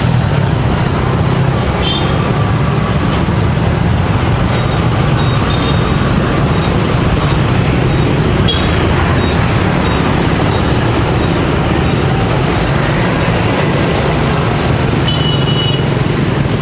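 Steady road traffic noise at a busy intersection, with a few short high-pitched beeps scattered through it.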